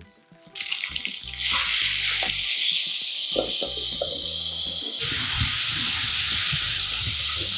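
Hot oil tempering of dried red chillies and curry leaves sizzling as it is poured into the watery raw-tamarind mixture. A steady, loud hiss sets in about a second in.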